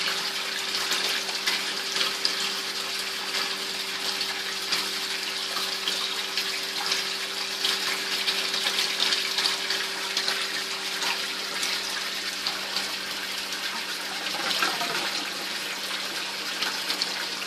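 Water from an aquaponics grow-bed siphon pouring out of a PVC outlet pipe and splashing into the fish tank below, a steady splashing. The stream thins as the siphon nears the end of its drain cycle, just before it cuts out (breaks).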